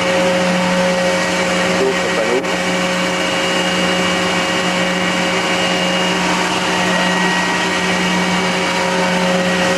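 Five-axis CNC milling machine machining aluminium: the spindle and cutter run steadily, giving a whine of several held tones over a dense cutting noise.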